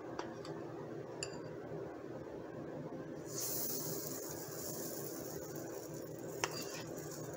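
A metal spoon clinks against the batter bowl a few times. About three seconds in, a steady high hiss starts as pancake batter lands on the hot waffle-maker plates and sizzles. There is a single sharp tap near the end.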